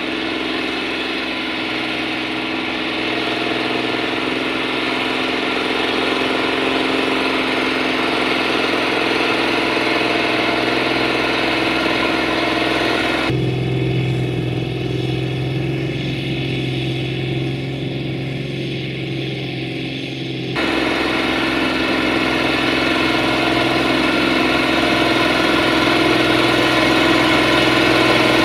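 The six-cylinder diesel engine of a Fiat 1380 DT tractor runs steadily under load, pulling a plough through wet ground. About halfway through, the sound turns duller and deeper for several seconds, then comes back brighter and a little louder.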